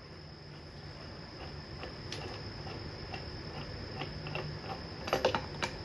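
Faint clicks and clinks of small metal parts being handled, with a sharper cluster of clinks about five seconds in, over a steady high-pitched tone.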